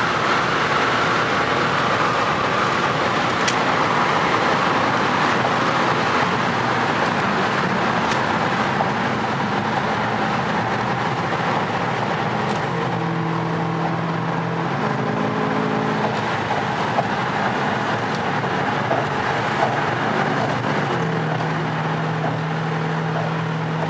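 Car engines running, a continuous dense noise with a steady low drone that shifts pitch a few times in the second half.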